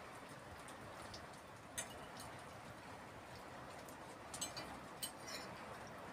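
Metal cutlery clinking lightly against a plate as food is cut and eaten: a few short, sharp clinks spread over several seconds, over a soft steady hiss.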